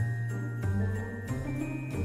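Background music: held high notes over a bass line that moves to a new note every half second or so.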